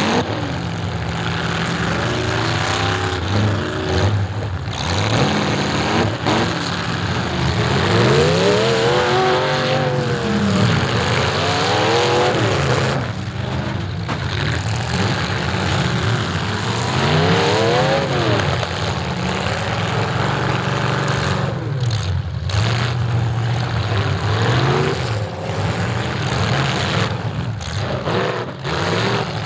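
Demolition derby car engines revving up and down over and over, several engines at once, with a steady background of engine noise.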